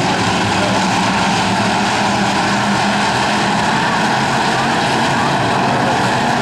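Bomber-class stock cars racing, their engines running hard together in a loud, steady drone.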